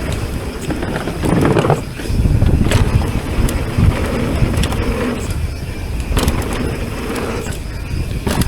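Mountain bike descending a dirt trail: wind rushing over the microphone and tyres rumbling over the ground, broken by sharp rattles and knocks from the bike over bumps.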